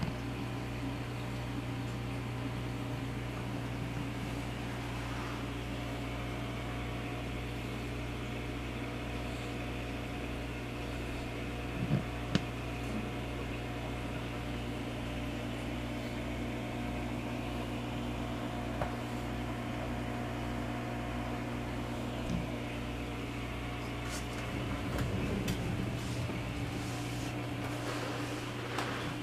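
Steady electrical hum of aquarium equipment with a light hiss of moving water. A couple of sharp clicks come about twelve seconds in.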